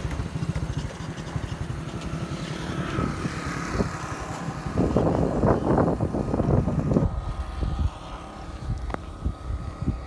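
Wind buffeting the microphone outdoors, a gusty rumble that swells for a couple of seconds midway, with a single sharp click near the end.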